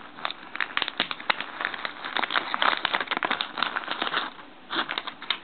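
Thin protective plastic film crackling and crinkling as it is peeled off a new iPod Classic: a dense run of crackles, a short pause, then a few more near the end.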